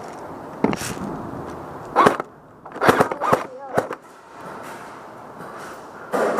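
Airsoft guns firing inside a house: a scattered string of sharp pops and cracks over the first few seconds, some in quick pairs. Near the end a louder stretch of noise starts.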